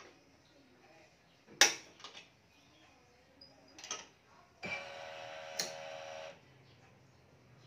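Badminton racket being strung on a digital stringing machine: one sharp click about a second and a half in and a few lighter clicks, then a steady whir lasting about a second and a half near the end.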